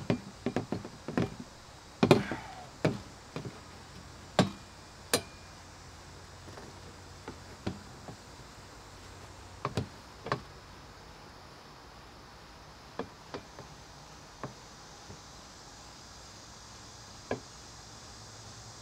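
Steel frame parts knocking against the plastic bed of a Gorilla Carts poly dump cart as they are fitted together: a quick run of sharp knocks in the first five seconds, then single knocks every few seconds.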